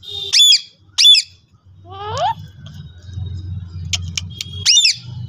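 Pet parrot squawking: three loud, harsh screeches that sweep sharply downward in pitch, two close together at the start and one near the end, with a shorter, lower call rising in pitch in between.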